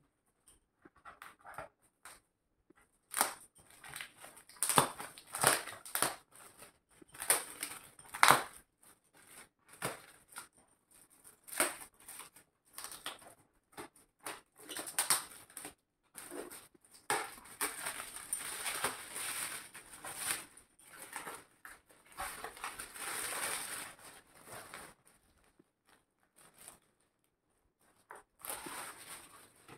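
Shiny plastic gift wrap crinkling and rustling in irregular bursts as a present is unwrapped by hand, with a few sharper crackles in the first ten seconds.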